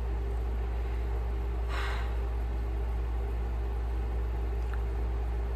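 Steady low machine hum, even in level throughout, with a brief soft hiss about two seconds in.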